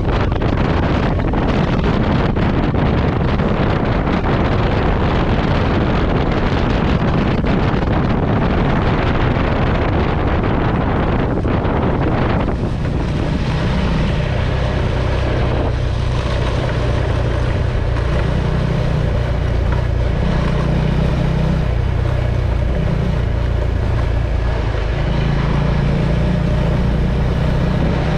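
KTM 390 Adventure's single-cylinder engine running on the move, with heavy wind noise on the microphone for roughly the first twelve seconds. After that the wind drops away and the engine note comes through clearly, its pitch shifting a little several times.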